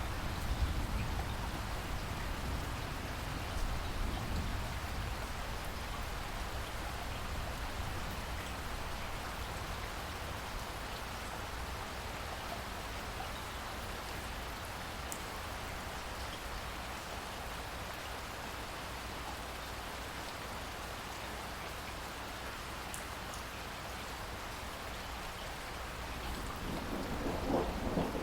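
Heavy rain falling steadily, with a low rumble of thunder in the first few seconds that dies away, and a new roll of thunder starting to swell near the end.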